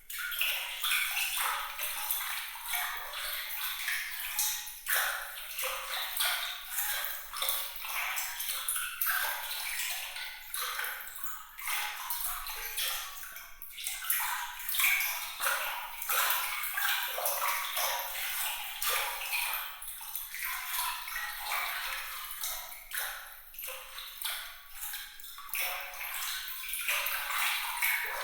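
Bright, trickling water: a continuous light babble of small splashes and droplet pings, with no deep sound under it and the level swelling and dipping every second or so.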